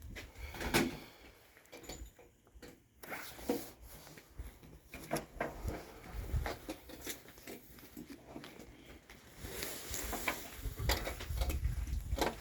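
Scattered rustling and short handling clicks close to the microphone, the sharpest about a second in, with low wind rumble on the microphone near the end.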